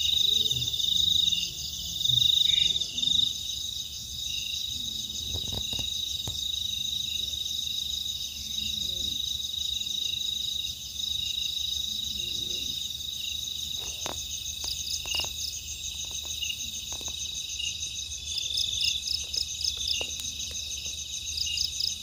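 A dense night chorus of crickets and other insects, steady high-pitched trilling throughout, with a few faint knocks scattered in.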